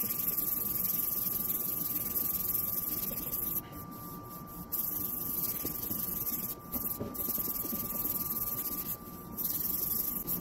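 Fine-grit sandpaper rubbed back and forth by hand over a yellowed plastic headlight lens, a steady dry rasping that breaks off briefly three times, as the rough oxidized surface is sanded smooth.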